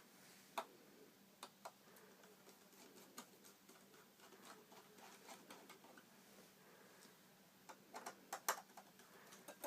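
Faint, scattered clicks of a Phillips screwdriver working the screws of an iMac's metal RAM access panel, with a quick run of louder clicks about eight seconds in.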